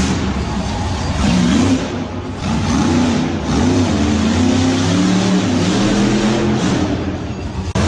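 Monster truck engine revving hard, its pitch swinging up and down again and again. There is a brief dip about two seconds in and a sudden cut near the end.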